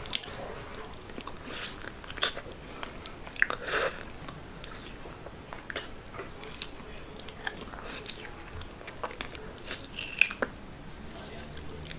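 Close-miked eating: irregular bites and chewing with crisp crunches, loudest about three and a half seconds in and again near ten seconds.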